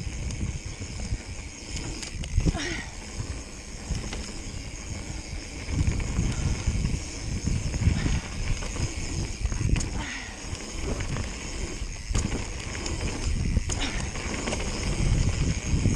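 Mountain bike rolling fast down a dirt trail: wind buffeting the GoPro microphone and knobby tyres rumbling over the dirt, swelling and easing with speed. The bike gives a few sharp knocks and rattles over bumps and a couple of brief squeaks.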